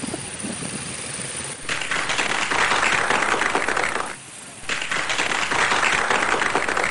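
Applause: many hands clapping. It starts about a second and a half in and briefly drops out a little past the middle.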